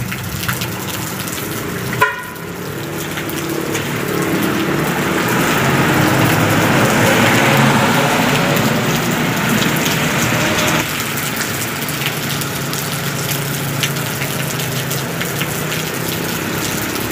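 Steady heavy rain. In the middle a truck drives past close on the wet road: its engine and tyre spray swell to the loudest point, then break off suddenly.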